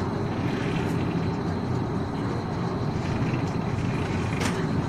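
Harbourcat passenger ferry's engines running under way, a steady low rumble, with a single short click near the end.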